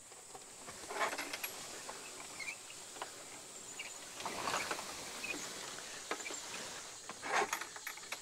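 Wooden chicken tractor dragged across grass pasture: its frame scrapes and rustles through the grass in a few rough bursts, about a second in, midway and near the end.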